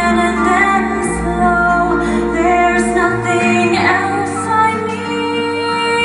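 A woman singing a slow musical-theatre ballad over instrumental accompaniment, holding long notes.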